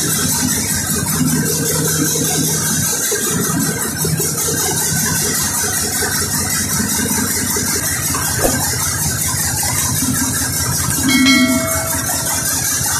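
Large compressed-air-started diesel generator engine running steadily, a dense, fast mechanical clatter. A short chime-like tone sounds about eleven seconds in.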